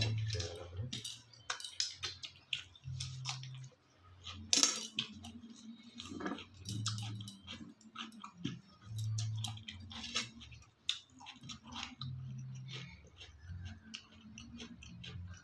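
A person eating a meal of rice, paneer-and-potato curry and cucumber: chewing and mouth sounds with irregular sharp clicks, the loudest about four and a half seconds in.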